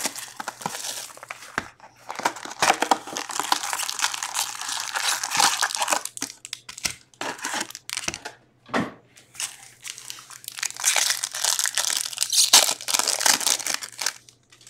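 Cellophane shrink wrap crinkling and tearing as it is stripped from a box of hockey cards, then foil card packs crinkling as they are handled and one is torn open near the end, with scattered clicks and taps between.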